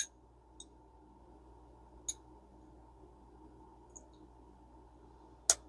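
A few sharp, isolated clicks and taps of small metal parts of a Mitchell 410 spinning reel being handled while the bell spring is fitted: a louder click at the start and another near the end, with fainter ticks between.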